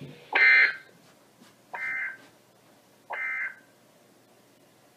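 Three short, warbling bursts of digital SAME data from a NOAA Weather Radio receiver, a little over a second apart, with the first the loudest. This is the end-of-message code that closes the Emergency Alert System special marine warning.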